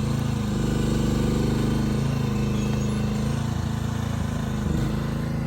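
Chinese mini excavator's engine running steadily, its pitch dipping briefly a few times.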